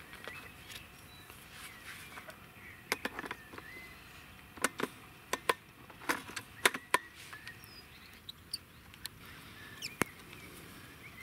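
Sharp clicks and knocks of a rifle being handled and a thermal scope being seated in a quick-release scope mount, a quick cluster of them a few seconds in and a single click near the end.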